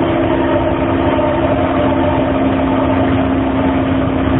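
Astram Line 6000-series rubber-tyred train running at steady speed, its shunt-wound chopper-controlled traction motors giving a steady, low hum of several held tones over the rumble of the running gear. The motor sound is abnormal on this car.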